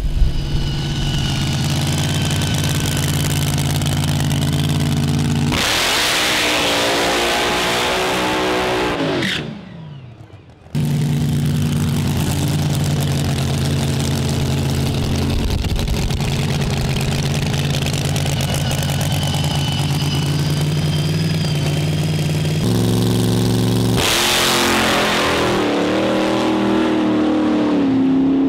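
Supercharged, nitro-burning Hemi V8 of a front-engine Top Fuel dragster, loud and steady at idle. Twice it opens up at full throttle for several seconds, its pitch falling each time; the second time, the car runs away down the track.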